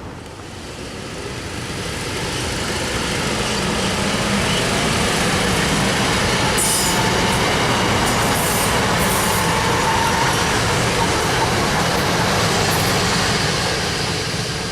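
A train running past on the tracks: a steady rumble of wheels on rail that builds over the first few seconds, holds, and eases off near the end, with a few brief high hisses along the way.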